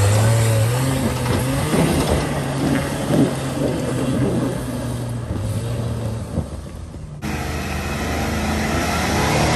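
Jeep engine pulling steadily under load as it crawls up a rocky trail, with a scattered crackle and knock of tyres over loose rock and gravel.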